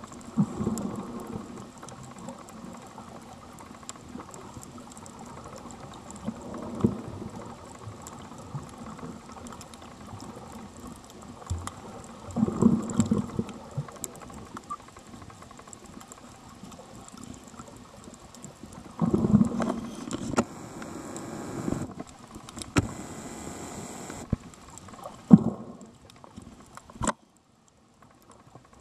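Muffled underwater sound of water moving around a camera held just below the surface while snorkeling: a steady low rumble with louder rumbling surges about every six seconds. A short hiss comes in past the middle, and the sound cuts out briefly near the end.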